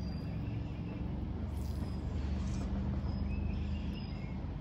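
River water running over shallows, under a low, steady hum, with a few faint, short bird chirps.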